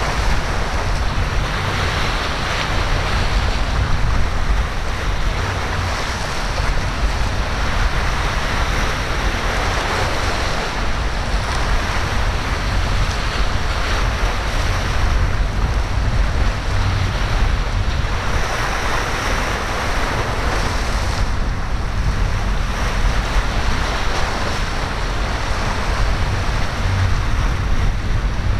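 Ocean waves breaking and surf washing in, swelling and fading every few seconds, with steady wind rumbling on the microphone.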